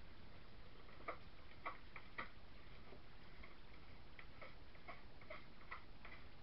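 Light, irregular taps and clicks of a utensil against a mixing bowl as soap batter is scraped out into a wooden loaf mould. Three sharper taps come about a second in, then fainter ones.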